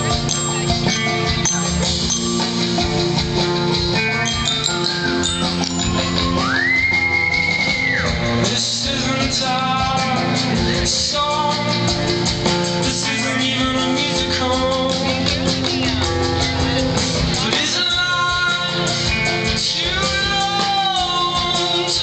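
Live rock-folk band music: electric guitar, drums and a singing voice. About six seconds in, a high held note glides up and wavers for a couple of seconds.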